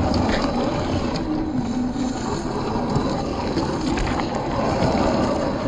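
Small brushed electric motor and gear drivetrain of an RC scale crawler running as it climbs loose rock, with a low wavering tone and scattered clicks of stones under the tyres.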